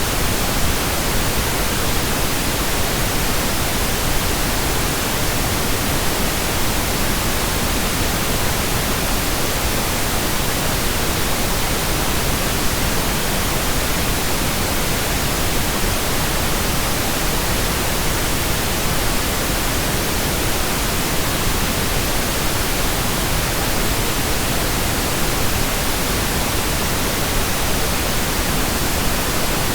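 Pink noise: a steady, unchanging hiss spread evenly from the deep lows to the highs, with no breaks or changes in level.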